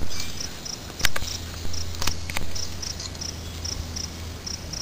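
A few sharp metallic clicks and knocks from a brake drum and hub parts being handled, two about a second in and two more about two seconds in. Short high chirps in pairs repeat in the background throughout.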